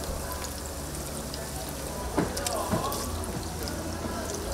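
Battered chicken deep-frying in a vat of hot oil: a steady bubbling crackle with a low hum underneath. Two sharp knocks come a little past halfway.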